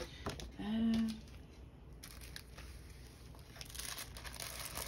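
Thin clear plastic bag crinkling and rustling as it is handled and emptied, with a short hummed voice sound in the first second.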